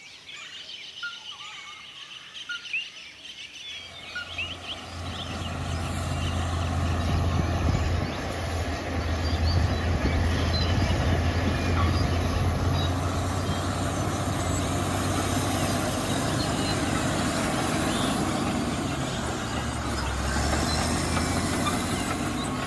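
Birds chirping. About four seconds in, a small FPV drone starts up and flies, its motors and propellers giving a loud, steady noise with a low hum.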